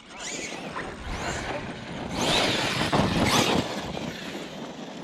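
Electric RC truck running hard. Its motor whine rises and falls in pitch with the throttle over a rushing noise, and it is loudest from about two seconds in.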